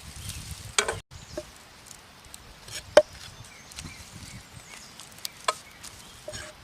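Several separate sharp knocks, the loudest about three seconds in, over a quiet outdoor background.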